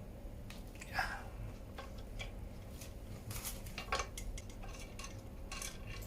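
Light metallic clinks and taps of a steel crank puller being handled and tried against a square-taper bicycle crank arm, scattered and irregular, with a louder clink about a second in and another about four seconds in.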